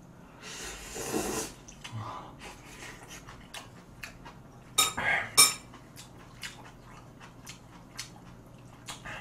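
Chopsticks clicking and tapping against a pan and dishes while eating, with a short noisy eating sound about a second in and a cluster of louder clinks about five seconds in.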